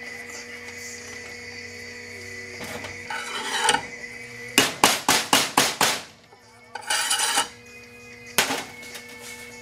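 Mallet tapping a water pump part down onto a Mercury outboard's lower unit: a quick run of about six taps at about four a second midway through, then one more tap near the end, with short bouts of handling noise either side of the run.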